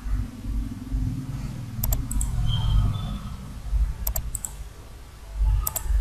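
Computer mouse button clicking three times, about two seconds apart, each click a quick pair of sharp ticks as the button is pressed and let go, over a low background rumble.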